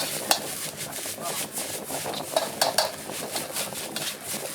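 Metal spatula scraping and clanking in a wok over steady sizzling of frying food. There is one sharp clank just after the start, then three in quick succession about halfway through.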